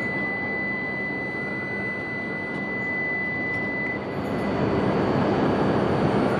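E5 series Shinkansen standing at the platform with a steady running hum. A single steady high-pitched warning tone sounds while the doors close and stops about four seconds in. The train's noise then grows louder as it starts to pull away.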